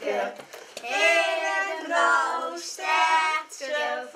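Group of children singing a Sint Maarten (St. Martin's) door-to-door song in unison, in drawn-out notes, singing for sweets.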